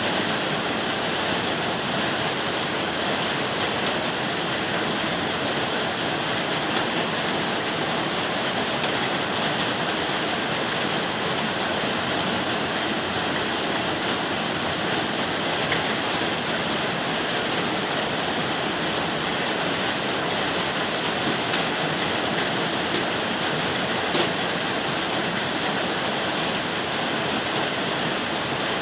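Steady rain falling, an even dense hiss with no change in strength, and a couple of sharper single taps, one about halfway through and one about two thirds of the way in.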